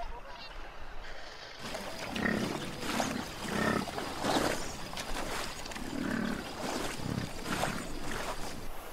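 American bison calling in a series of low grunts, five or six of them, starting about a second and a half in.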